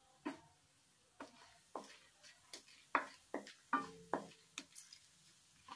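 Tempering seeds spluttering in hot oil in a kadai: irregular sharp pops and crackles, about a dozen in all. A wooden spatula stirs through them in the second half.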